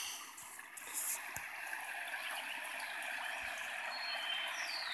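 Creek water flowing steadily, with a brief knock about a second in.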